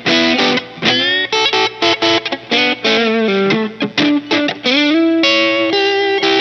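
Electric guitar played through a Boss Turbo Distortion (DS-2) pedal: a fast distorted lead line of short picked notes with string bends, settling into a held note in the second half.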